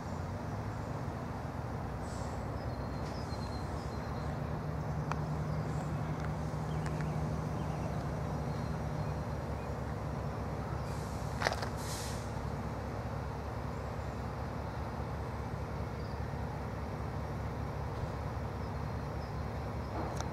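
Class 70 diesel locomotive engine idling with a steady low hum. Birds chirp faintly in the first seconds, and there is a single sharp click about eleven seconds in.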